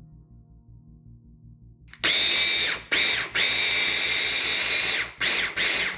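Electric mini chopper blending green olives, anchovies, capers and garlic into tapenade, its motor whining as the blades spin. The motor starts about two seconds in and is run in pulses, cutting out briefly several times. Faint background music plays before it starts.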